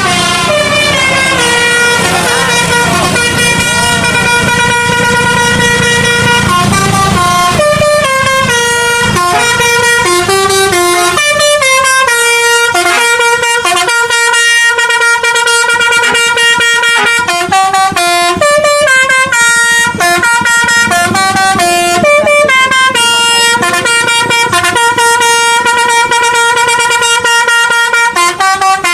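Indonesian bus telolet Basuri horn, a multi-tone air horn, playing a melody of quickly changing notes, loud and without a break. A low rumble runs underneath for roughly the first eight seconds.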